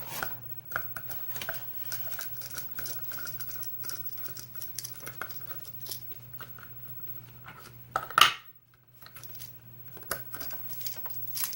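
Small metallic clicks, taps and scrapes from handling a picked pin-tumbler kik lock cylinder and its tools, with one sharper, louder clack about eight seconds in. A steady low hum runs underneath.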